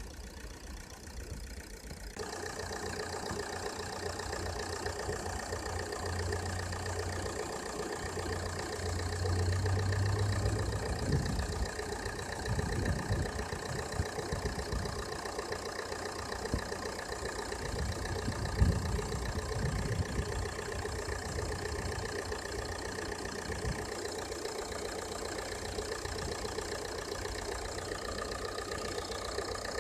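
Ford S-Max engine idling steadily with the alternator drive belt running quietly, its squeal gone after the belt was sprayed. The sound grows louder about two seconds in, and a few low thumps come through in the middle.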